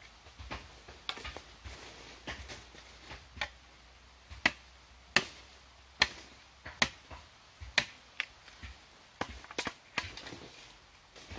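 Machete chopping and trimming a bamboo pole: a series of sharp, irregular chops, roughly one or two a second, the loudest about halfway through.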